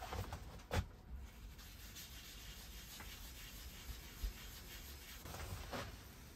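Paper towel rubbing over bare sycamore wood as it is wiped clean. There is a sharp click just under a second in, a soft knock about four seconds in, and a louder spell of rubbing near the end.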